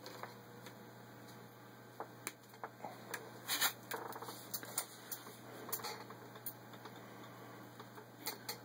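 Denim swatch being handled and pulled free from under the presser foot of a sewing machine: faint, irregular rustles with light clicks and taps, busiest about three to four seconds in.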